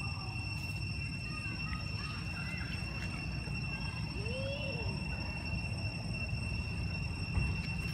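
Outdoor ambience: a steady high insect drone over a low rumble, with one short rising-and-falling call about halfway through.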